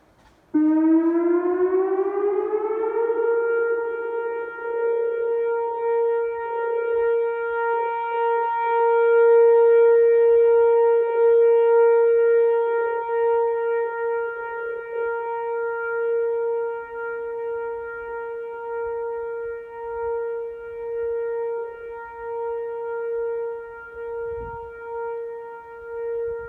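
Whelen Vortex outdoor warning siren starting up about half a second in, its pitch winding up for a couple of seconds and then holding a steady tone. The loudness swells and dips as it sounds, during a check that the siren works after a test.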